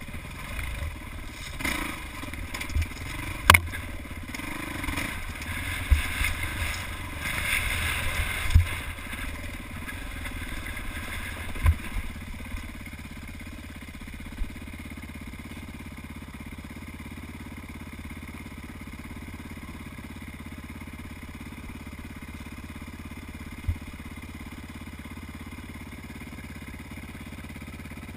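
Dirt bike engine running while the bike picks its way over rocky single track, with several sharp knocks and clatter from rocks under the wheels in the first half. From about twelve seconds in it settles to a steady idle.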